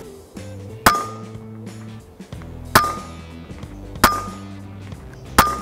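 Four sharp shots from a 6.35 mm ZBROIA Sapsan PCP air rifle, unevenly spaced a second or two apart, each with a brief metallic ring. Background music runs underneath.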